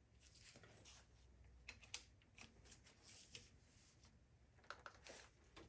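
Faint scattered clicks and short light scrapes of hand tools working on the engine's connecting rods.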